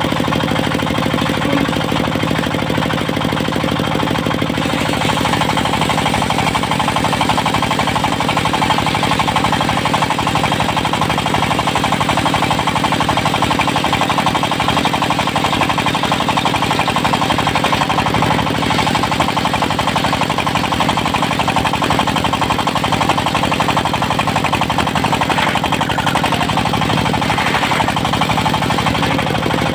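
Diesel engine of a portable circular sawmill running steadily with a fast, even beat.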